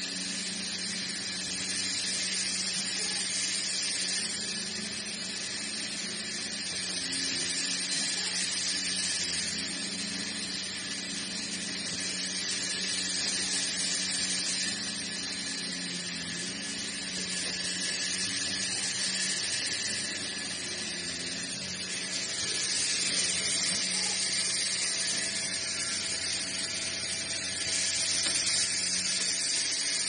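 MJ500 horizontal band sawmill running, its band blade cutting lengthwise through a log: a steady hiss of sawing over a low, even machine hum.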